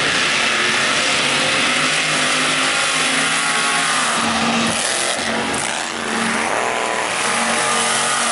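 Supercharged big-block mega truck engines running at full throttle as the trucks race through mud. The engine note rises and falls around the middle, with a brief dip in loudness about six seconds in.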